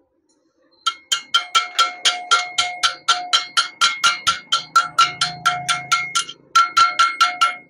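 Rapid, evenly spaced metallic strikes, about four a second, each with a bell-like ring at the same pitch, with a short break near the end.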